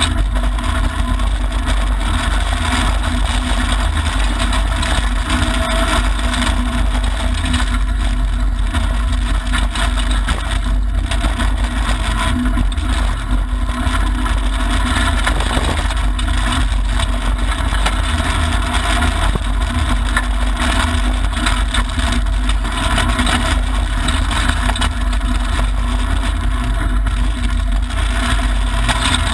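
Mitsubishi Lancer Evolution IX rally car at speed on a gravel stage, heard from inside the cabin: the turbocharged four-cylinder engine running under a loud, steady rumble of tyre and gravel road noise.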